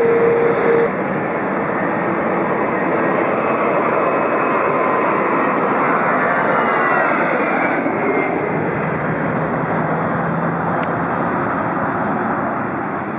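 Jet airliner passing by, its engines giving a steady roar with a whine that falls in pitch about six to eight seconds in. A steady tone cuts off about a second in.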